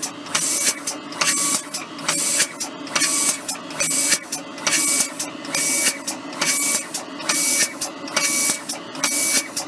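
FSCC06 micro spray gun spraying coating material in short pulses, a sharp hiss each time with a click as it opens and shuts, repeating in a steady rhythm of about one to two a second over a steady mechanical running noise.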